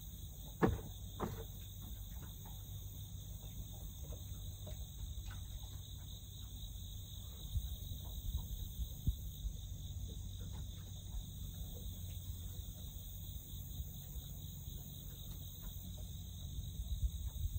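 Steady, high-pitched chorus of insects such as crickets, over a low background rumble, with a couple of faint clicks near the start from handling the fishing line and jig.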